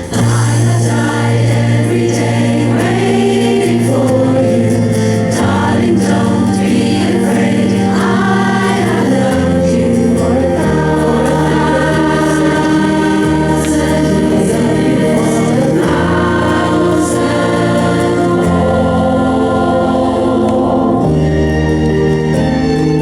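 Music: a choir singing slow held chords that change every second or two.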